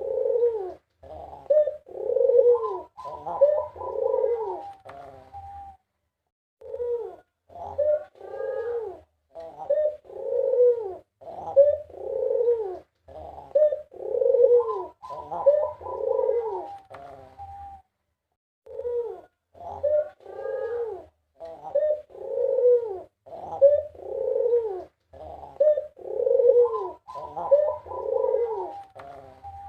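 White puter (Barbary) dove cooing over and over, in bouts of about five seconds, each a string of rising and falling coos. There are two short pauses between bouts.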